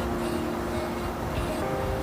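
Background music with held, steady notes over a low rumble.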